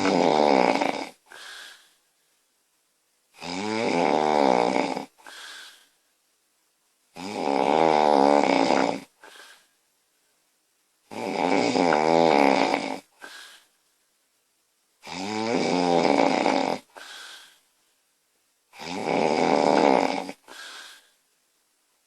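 A woman snoring loudly in her sleep, with long pitched snores repeating about every four seconds, six in all. Each snore is followed by a short, softer breath sound.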